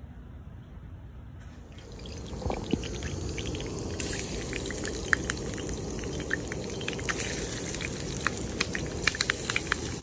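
Hot oil sizzling in a frying pan as seasoned pieces of iguana meat fry, with frequent crackles and pops. The sizzle starts about two seconds in and grows denser.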